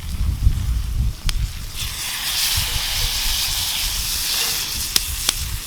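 Hot frying pan sizzling: a hiss swells about two seconds in and holds, with a few sharp pops, after a low rumble at the start.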